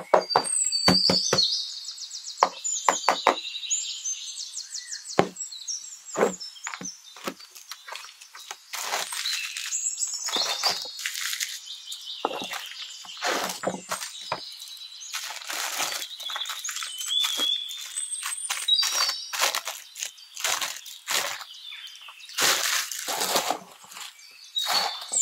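A cardboard box and its clear plastic wrapping being handled: crinkling and rustling, with many sharp clicks and taps of cardboard flaps and packaging as a toy tractor is unboxed.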